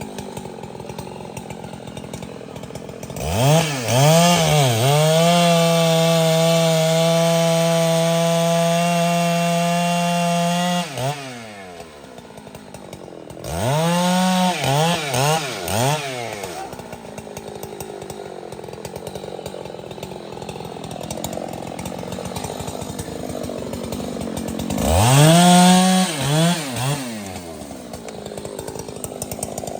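Large two-stroke chainsaw idling and being revved. Its throttle is blipped a few times, then held at high revs for about six seconds before dropping back to idle. Two shorter runs of quick throttle blips follow later.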